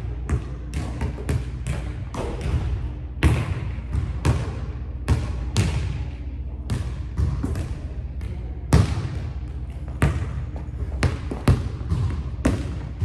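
Basketball dribbled on a hardwood gym floor: sharp bounces a few times a second at an uneven pace, each echoing in the large hall.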